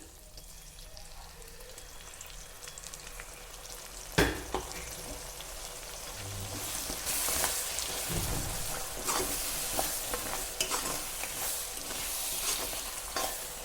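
Ground masala paste of white mustard seed, cumin, black pepper, coriander, ginger, garlic and onion frying in hot oil in a pan while being stirred. There is one sharp knock about four seconds in, and the sizzle grows louder from about six seconds on.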